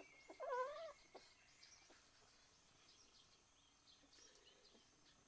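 A kitten mews once, a short wavering cry about half a second in, with faint bird chirps in the background.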